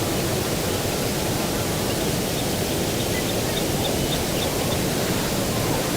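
Steady outdoor rushing noise of breeze over the microphone. Midway through, a bird repeats a faint, short high note about three times a second for a couple of seconds.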